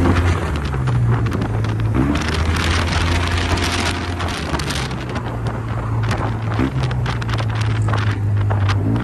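Yamaha TMAX scooter's parallel-twin engine running under way, its pitch rising with the throttle about two seconds in and again near the end. Heavy wind noise on the microphone.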